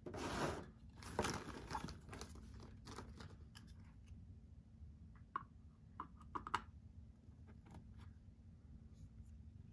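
Plastic packaging rustling and crinkling, then scattered small clicks and taps of plastic pieces being handled.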